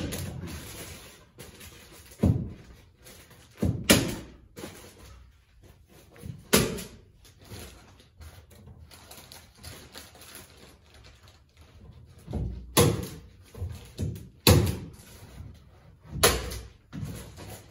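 Hand staple gun firing staples through the paper facing of fiberglass batt insulation into wooden wall studs. About seven sharp shots come at uneven intervals, with pauses of a few seconds between some of them.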